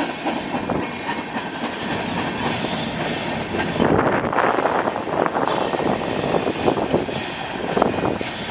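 Freight cars' steel wheels rolling over the rails, with a thin high wheel squeal coming and going, and a cluster of clacks about halfway through.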